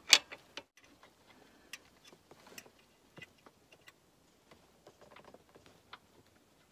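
Metal clicks and taps from a serpentine belt tensioner tool and its locking pin: the tensioner is held back while the pin is worked into the bottom hole of the tensioner's tab. A sharp clatter comes right at the start, followed by faint scattered ticks.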